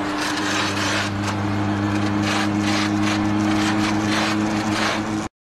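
Peugeot World Rally Car's turbocharged four-cylinder engine running at a steady, unchanging note as the car drives close by. The note cuts off suddenly about five seconds in.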